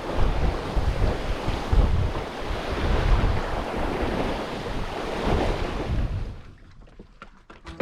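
Wind buffeting the microphone over the rush of water past a sailboat's hull while under sail in a moderate breeze, loud and gusty. About six seconds in it dies away to a much quieter stretch with a few faint clicks.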